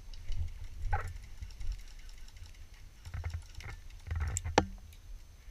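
Muffled knocks and handling thumps with a few sharp clicks, heard through a sealed waterproof camera housing, as the camera wearer moves with his gear.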